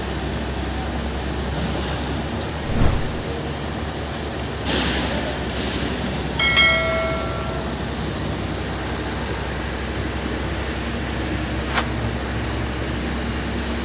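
Steady machinery noise with a low hum, with a few knocks and a short ringing tone about six and a half seconds in.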